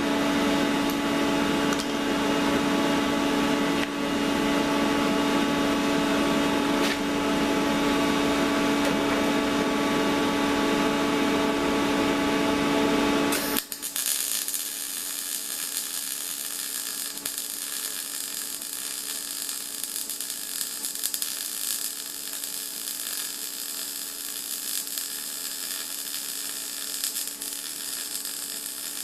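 MIG welder in use: a loud, steady buzzing hum with crackle, which drops abruptly about 14 seconds in to a quieter hiss and crackle.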